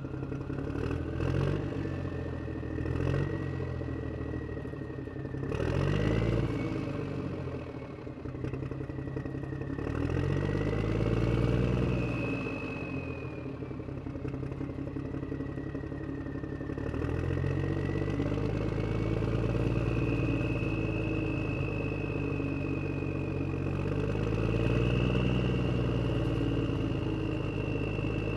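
Truck engine running, its pitch rising and falling in repeated swells as it revs up and eases off, with a thin high whine drifting up and down above it.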